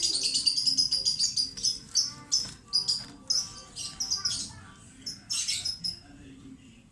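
Red-eyed lutino lovebird chirping in quick, high chatter, dense for the first couple of seconds, then in separate bursts that die away about six seconds in.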